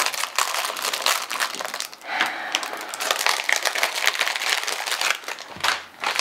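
Plastic LEGO minifigure blind bags crinkling in the hands as they are handled and opened, a dense rapid crackle with a short lull near the end.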